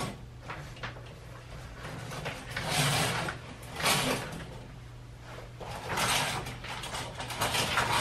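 Double shower curtain hooks sliding and scraping along a metal curtain rod, with the fabric curtain rustling, in several short swishes.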